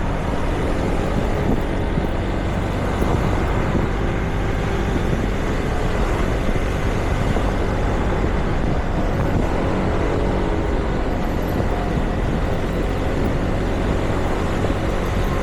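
Steady street traffic: motor vehicle engines running and passing close by.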